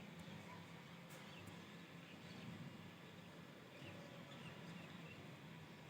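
Near silence: faint steady hiss and low hum, with a few faint, short high chirps scattered through it.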